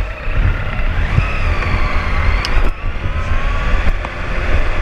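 Sport motorcycle's engine pulling away, its pitch rising about a second in and then holding steady, under heavy wind rumble on the microphone.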